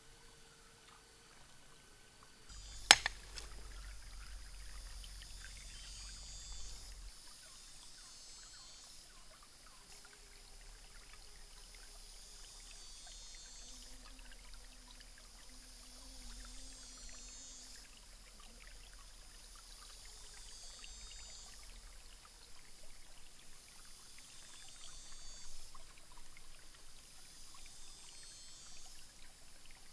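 Shallow rocky stream trickling over stones, with one sharp knock about three seconds in. High chirps repeat every two to three seconds throughout.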